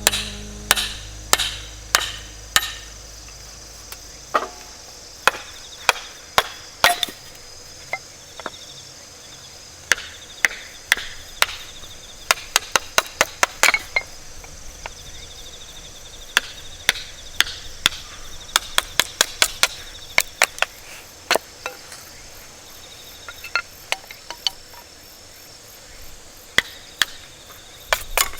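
An irregular series of sharp chopping knocks, often several a second with short gaps between runs, like a hatchet or blade splitting small firewood. A faint steady insect trill runs underneath.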